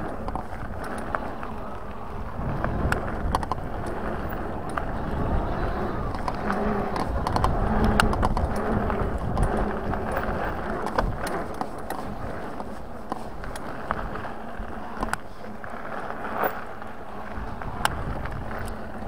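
Lankeleisi X3000 1000 W e-bike rolling over a gravel pump track: a steady tyre rumble on the gravel, broken by many sharp clicks and rattles from the bike as it goes over the bumps.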